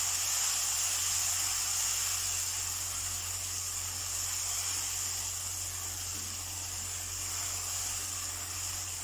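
Chicken in a tomato gravy sizzling with a steady hiss in a nonstick wok.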